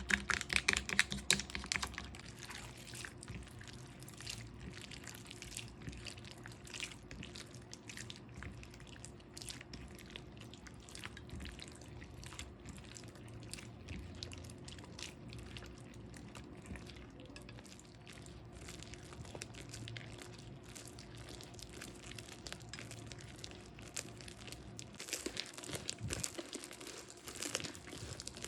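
Slime being squished and worked by hand: a continuous run of small sticky clicks and crackles, denser and louder near the start and again near the end.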